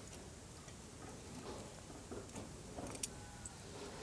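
Faint, scattered light clicks as beef entrecotes are turned over on a charcoal grill's grate.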